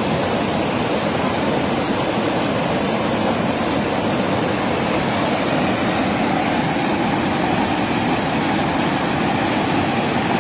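Mountain river rushing over boulders in white-water rapids: a loud, steady rush of water.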